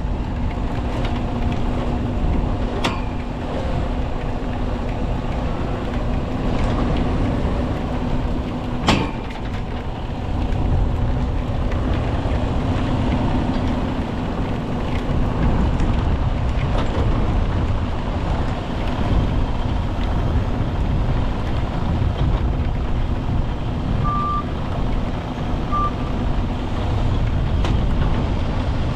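Heavy rotator wrecker's diesel engine running steadily under load, with a constant hum, while it pulls a mired semi. There are sharp knocks about three and nine seconds in, the second the loudest, and two short alarm beeps near the end.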